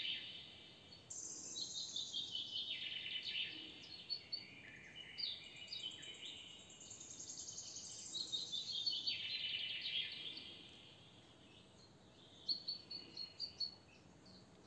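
Songbirds singing: a series of rapid trills that fall in pitch, one after another, with a longer phrase about halfway through and a few short separate chirps near the end.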